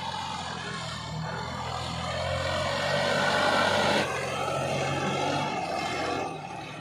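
Turbocharged diesel engine of a Swaraj 960 tractor running steadily under heavy load while pulling a 20-disc harrow, louder between about two and four seconds in. There is no abnormal rattle from the newly fitted turbo.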